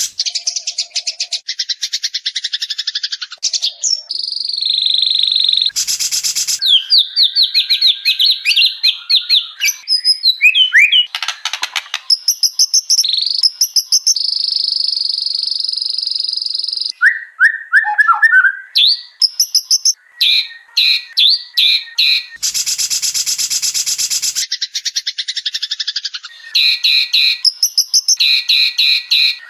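White-rumped shama song from an edited bird-training recording. It runs as fast, varied phrases of trills, whistled glides and a long held whistle, broken twice by a short harsh buzzing call.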